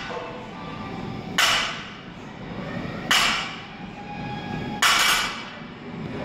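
Loaded barbell clanking against the floor on each deadlift rep: three sharp metallic clanks about 1.7 seconds apart, each ringing briefly.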